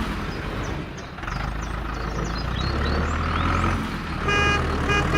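A truck engine running steadily, with birds chirping for the first few seconds and a short horn-like tone sounding twice near the end.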